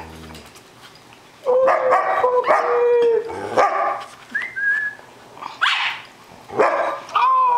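Dogs whining and yipping: after a quiet first second or so, several drawn-out pitched cries and short rising yips come with pauses between them.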